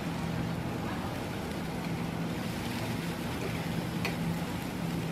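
Steady low motor hum, with a faint clink of metal tongs on the grill grate about four seconds in.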